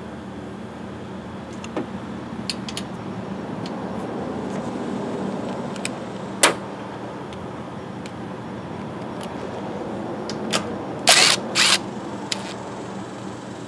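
Scattered clicks and knocks of tools and metal engine parts being handled, then near the end two short bursts of a cordless driver spinning out fasteners on the engine shroud. A steady low hum runs underneath.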